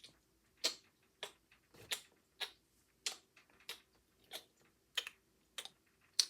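Light clicks repeating at an even pace, about one every half second, while a doll is pretend-fed from a toy baby bottle.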